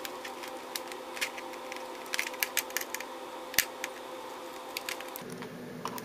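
Scattered light clicks and taps of a small screwdriver and fingers working the screws of an Asus UL80V laptop's plastic hard-drive cover, with one louder click about three and a half seconds in, over a steady hum.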